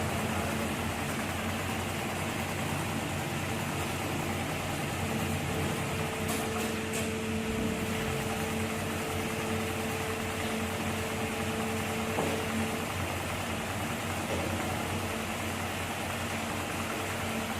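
HEMS 250 CNC programmable pattern sewing machine running with a steady mechanical hum over a constant hiss. A higher tone in the hum stops about two thirds of the way through.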